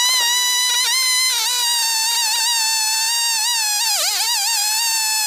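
Chainsaw fitted with a carbide-tipped chain running at high revs while cutting through a log, a steady high whine that wavers and dips briefly in pitch about four seconds in.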